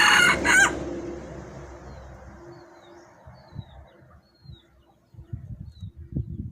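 Wild junglefowl rooster ending a loud crow in the first second, with faint high chirps after it and a few soft low knocks near the end.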